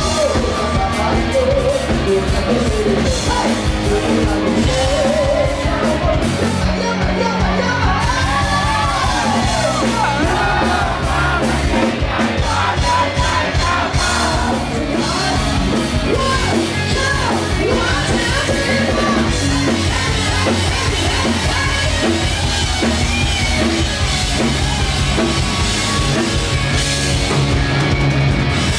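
Live rock band playing loud: distorted electric guitars and drum kit with a singer, heard in the room.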